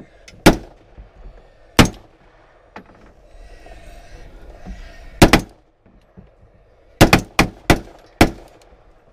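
Rifle shots in 6.5 Grendel and 5.56, fired from inside a wooden hunting blind at feral hogs. Single shots come a second or more apart, then a fast string of five about seven seconds in.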